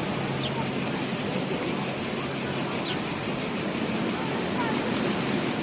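Steady chorus of insects, a high, fast-pulsing trill, over a soft wash of beach surf, with a few faint short chirps.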